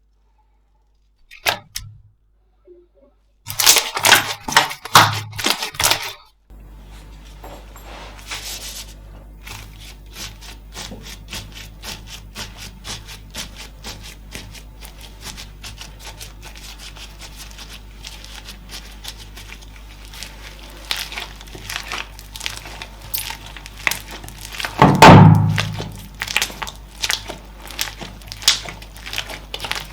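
Slime handled by hand, giving dense crackling and popping clicks: a loud flurry a few seconds in, then steady quieter crackle, with the loudest squishy burst about 25 s in.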